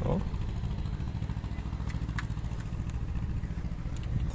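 A motor engine idling, a steady low hum with a few faint ticks over it.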